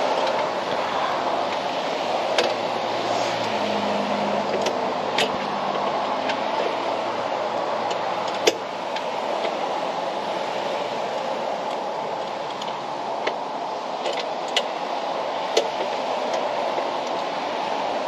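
Scattered sharp clicks and clinks of hand tools and metal parts over a steady rushing background noise.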